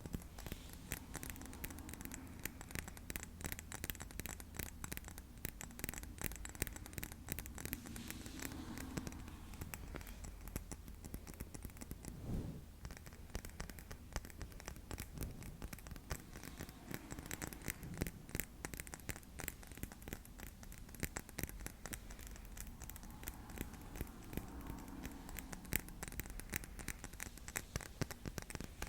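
Rapid, close-miked fingernail tapping and scratching on a hard object, many quick taps a second without pause.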